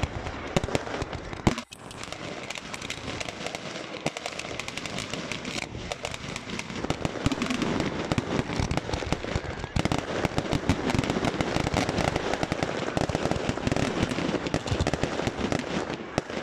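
A multi-shot firework barrage fired from the ground, letting off a dense, rapid run of bangs and crackling bursts with hardly a pause.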